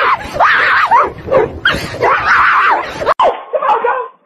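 A dog barking loudly and repeatedly; the sound breaks off abruptly about three seconds in.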